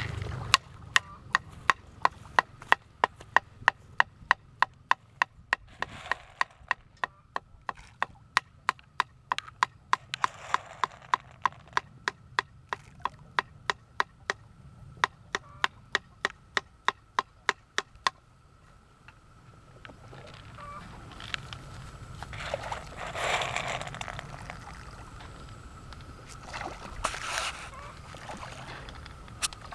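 Sharp, evenly spaced knocks, about three a second, keep up for the first eighteen seconds or so and then stop. After that, soft splashing comes from fish taking feed at the pond's surface.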